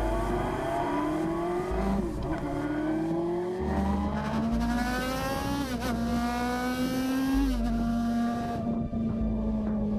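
Enduro motorcycle engine accelerating through the gears, its pitch climbing and dropping back at each upshift, then holding steady at cruising speed near the end, with wind rushing over the microphone.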